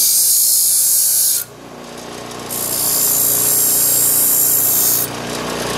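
Bench grinder fitted with diamond discs grinding a 3/32-inch 2% lanthanated tungsten electrode to a point, with a loud, high grinding hiss. The hiss lasts about a second and a half, drops away briefly to the motor's hum, then returns from about two and a half seconds until about five seconds in.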